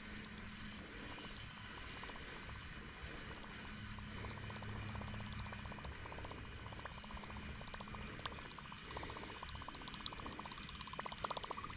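A topwater fishing lure being reeled back across the pond, gurgling and splashing on the surface. A steady high chorus of insects runs behind it.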